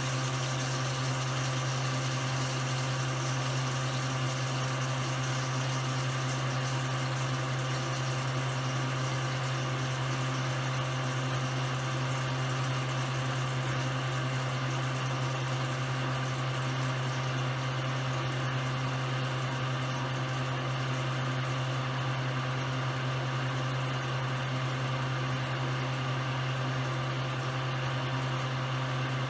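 Steady hum of a running electric motor: a low, unchanging drone with a hiss above it, the same throughout.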